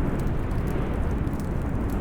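Fireplace ambience: a steady low rumbling noise with a few faint crackles of burning wood scattered through it.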